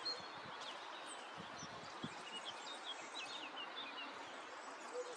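Outdoor ambience with small birds chirping in many short, high twitters over a steady background hiss, with a few soft low thumps.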